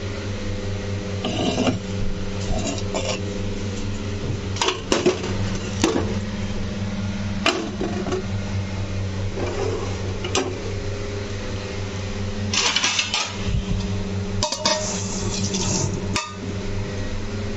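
Metal cooking pots and utensils clinking and knocking now and then over a steady low hum, with two stretches of rushing noise about two-thirds of the way through.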